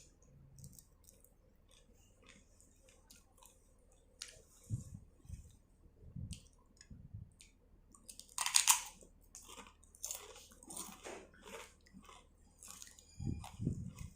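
Close-up chewing and crunching of a mouthful of seafood papaya salad, in short irregular crunches with small wet mouth clicks; the loudest crunch comes about eight seconds in, with another run of bites near the end.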